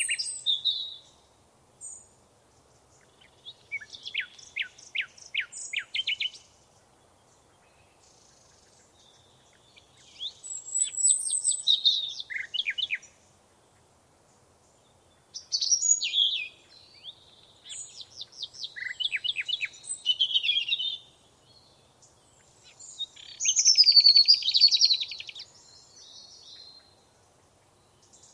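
Songbird singing: bouts of quick, high, downward-sweeping notes and trills a few seconds long, repeated with pauses of a few seconds between them.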